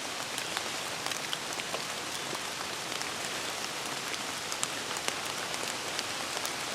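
Hard rain falling: a steady hiss with many separate drops ticking through it.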